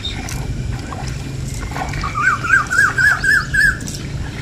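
An animal calling: a quick run of about six short, rising pitched notes about two seconds in, over a steady low hum.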